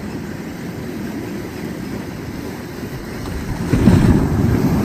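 Sea waves washing against the shore with wind buffeting the microphone, growing louder near the end.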